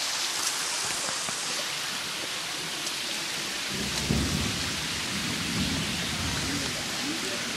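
Steady hiss of rain falling outdoors. A low rumble joins it about four seconds in and carries on.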